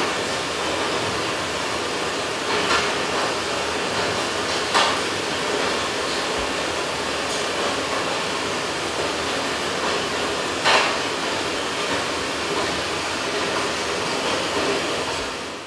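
Recorded heavy rain: a steady rushing hiss with a few brief crackles, fading out at the very end.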